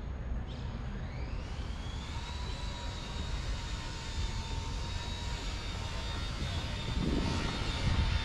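Street traffic noise with a high engine whine that rises about a second in and then holds steady. The traffic gets louder near the end.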